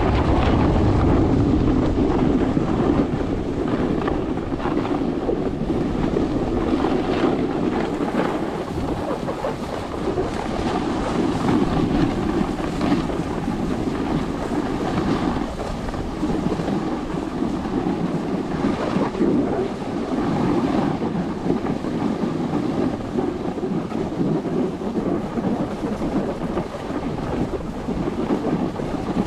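Wind rushing over the microphone and a snowboard scraping over groomed snow while riding downhill, a steady unbroken noise.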